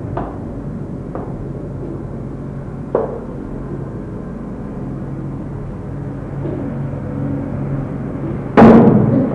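Steady low background hum with a few soft knocks like footsteps on a hard floor, then one loud sudden bang near the end that dies away within half a second.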